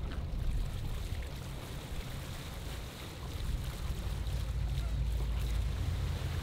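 Boat engine running with a low, steady rumble that swells about halfway through, over the rush of water along the hull and wind buffeting the microphone.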